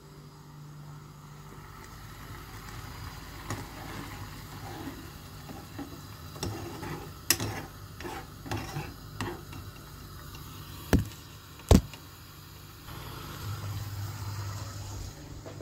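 A metal spoon stirring a thick stew in a saucepan, scraping and clinking against the pan. Two sharp knocks about a second apart stand out near the end, followed by a steady low hum.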